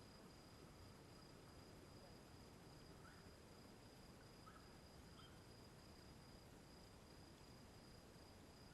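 Near silence at a campsite, with a faint steady high-pitched insect trill throughout and a few faint short chirps between about three and five seconds in.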